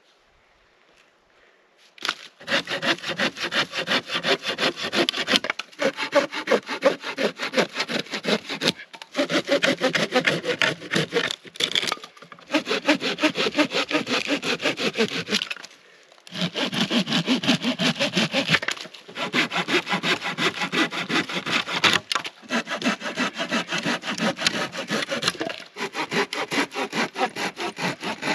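Hand saw cutting through a dead branch with quick back-and-forth strokes, starting about two seconds in and going in runs of a few seconds with short pauses between them.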